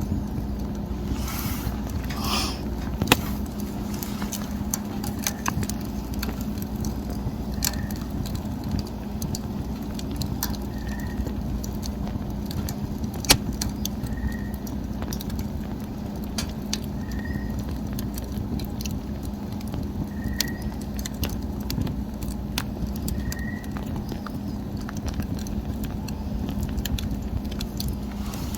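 Wood fire crackling, with irregular sharp pops over a steady low background, two of them louder about three and thirteen seconds in. A faint short high chirp repeats about every three seconds.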